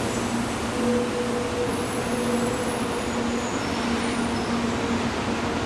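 Shinkansen bullet train moving slowly past on the adjacent track: a steady rolling rush of noise with a low electric hum through it.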